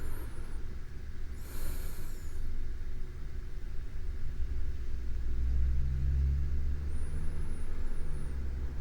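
A sleeping person's slow breathing close to a binaural microphone. A short breath comes about a second and a half in, then a longer, low breath from about halfway, with a faint high whistle near its end. A steady low rumble sits under it throughout.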